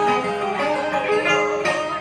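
Instrumental music led by plucked strings, held and wavering notes with no singing.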